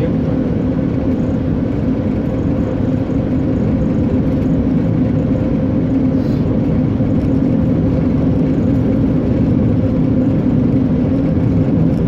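Car cruising at a steady speed along a highway: an even, unbroken drone of engine and tyre noise.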